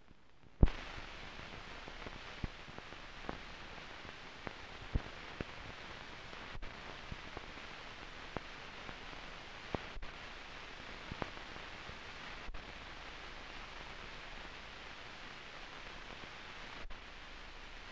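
Steady hiss with scattered clicks and pops from an old film soundtrack, with no speech. A sharp click comes about half a second in as the hiss begins, followed by irregular pops every second or so.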